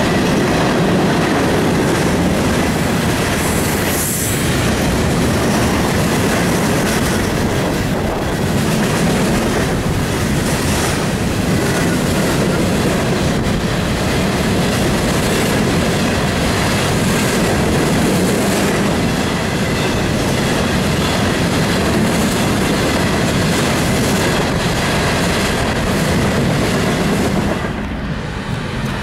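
Empty open-top hopper cars of a freight train rolling past steadily on the rails, a continuous loud rumble and clatter of wheels, dipping briefly near the end.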